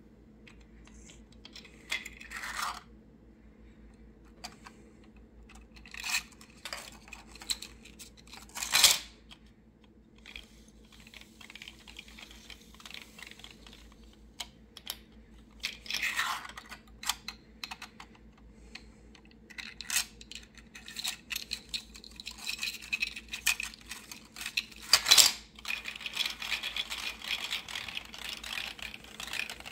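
Plastic fidget star being worked by hand, its nested star-shaped layers clicking, rattling and scraping against each other as they slide and collapse, in irregular bursts. There are about half a dozen sharper clacks and a run of dense clicking near the end.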